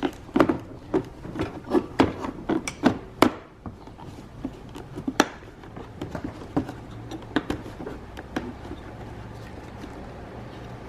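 Light clicks and taps of a hand screwdriver and plastic parts as small screws are refastened into a car window master switch housing. The clicks come about twice a second for the first few seconds, then more sparsely.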